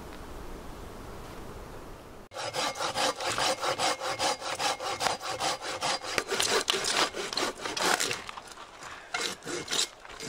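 Hand saw cutting through a dead log, starting about two seconds in with a quick, even run of back-and-forth rasping strokes that pause briefly near the end and then resume for a few more strokes.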